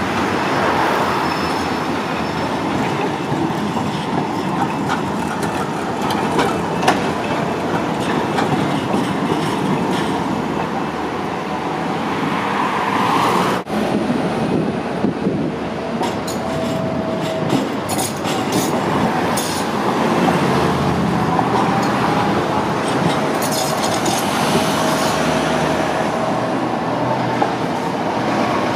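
Electric city trams passing on street track. The wheels click over rail joints and points, with brief squeals of the wheels on the rails in the second half.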